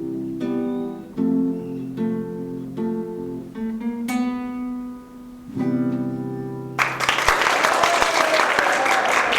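Acoustic guitar played with plucked notes and chords, each left to ring. A last chord sounds about five and a half seconds in. About seven seconds in, applause breaks out suddenly and carries on.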